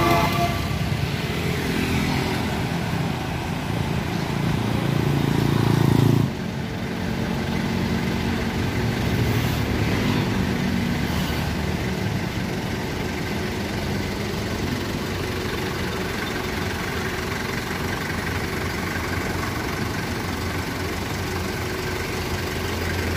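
Vehicle engines running with passing road traffic. The sound grows louder until it cuts off abruptly about six seconds in, then carries on at a steadier level.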